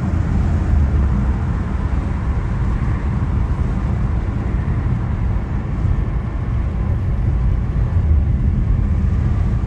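A car driving, with a steady low road and engine rumble.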